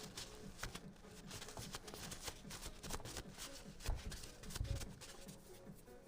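Hands handling small parts of an airsoft gas magazine: a steady run of light clicks and rustles, with two dull knocks about four and a half seconds in.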